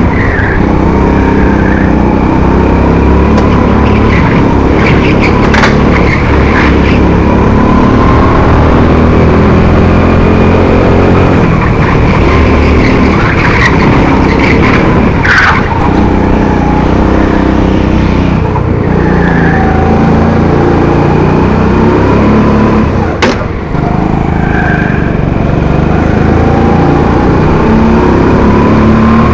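A go-kart's 200cc Honda single-cylinder four-stroke engine running hard, revving up and down through the corners, with wavering tyre squeal over it. A few sharp knocks come along the way.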